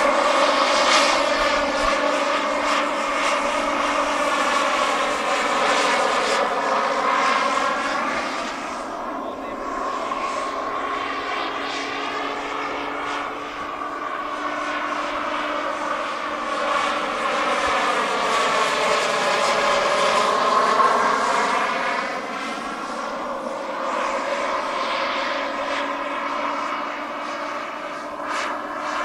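Turbine engine and rotors of a radio-controlled Bell 429 scale helicopter, running steadily in flight. The whine's pitch sweeps down and back up several times as the model flies past.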